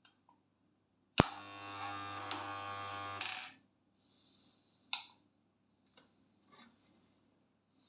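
Homemade spot welder built from a microwave oven transformer: a sharp snap about a second in, then a loud mains buzz for about two seconds that stops abruptly. A single click follows near five seconds.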